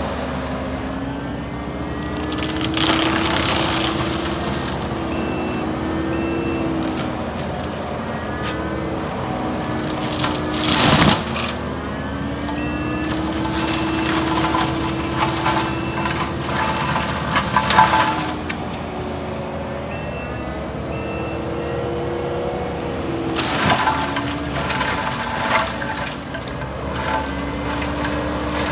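Kubota skid steer engine running under heavy, changing load from a forestry mulcher, its pitch dipping and recovering as the head bites, with bursts of cracking and crushing as brush and wood are shredded. The loudest cracks come about eleven and eighteen seconds in, and short repeated beeps sound at times.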